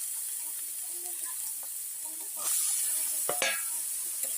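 Food sizzling as it fries in a hot pan, a steady hiss that grows louder a little over halfway through. A single clink of a utensil against the pan comes shortly after.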